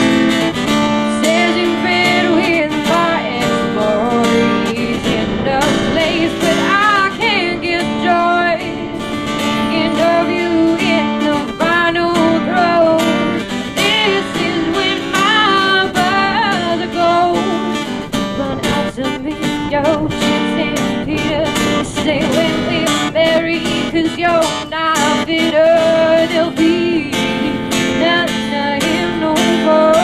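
Strummed acoustic guitar accompanying a woman's singing voice.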